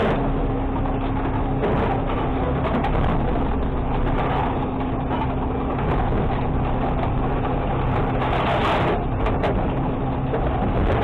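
Automated side-loader garbage truck's engine and hydraulics running under load as the packer sweeps trash out of the hopper, with a steady hum throughout. A short burst of hiss comes about eight and a half seconds in.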